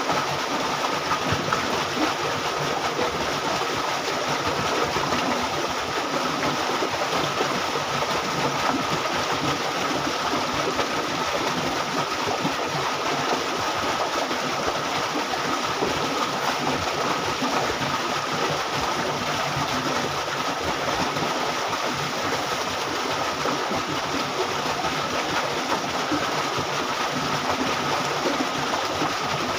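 Steady rush of water flowing along a concrete irrigation canal, unbroken throughout, with a faint steady high tone running under it.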